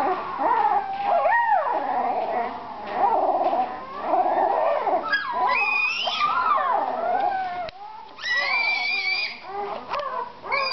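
Young puppies whining and howling in a near-continuous run of wavering, gliding cries, with sharper high-pitched squeals about halfway through and again near the end.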